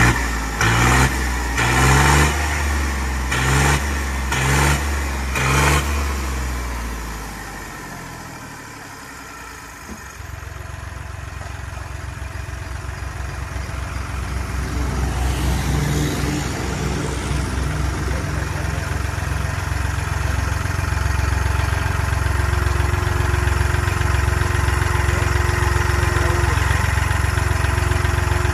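John Deere 5210 tractor's diesel engine, fitted with a new steel silencer, revved in about six short throttle blips, then after a brief lull running steadily and gradually louder.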